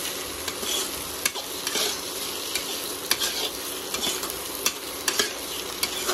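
Spiced potato pieces frying and sizzling steadily in a pan while a perforated metal spatula stirs them, its edge clicking and scraping irregularly against the pan.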